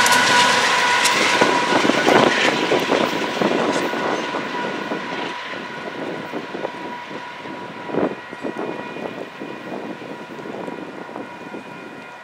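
Union Pacific freight train of covered hopper cars rolling away, its wheel rumble and rattle fading steadily, with a single clank about eight seconds in. Steady high ringing tones from the grade-crossing warning signals sound over it.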